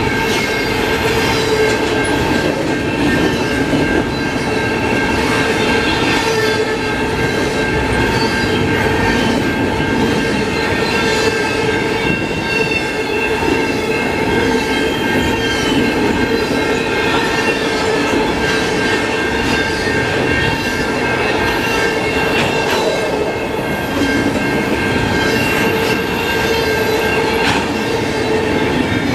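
Double-stack container well cars of a freight train rolling past with a steady rumble of wheels on rail, faint clicking at the rail joints, and a sustained high metallic squeal from the wheels.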